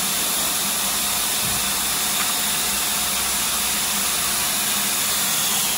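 Paint spray gun fed by a hose, spraying paint onto a door: a steady, even hiss with a faint motor hum underneath.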